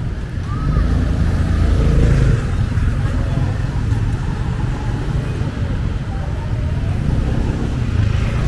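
Street traffic: motor vehicle engines running and passing in a steady low rumble, with people's voices in the background.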